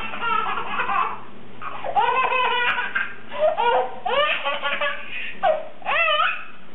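A baby laughing hard, in about five separate fits of giggling with short pauses between them.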